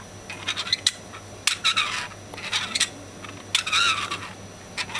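A one-piece 3D-printed plastic bellows mechanism squeezed by hand again and again, each squeeze giving a short noisy burst, about one a second.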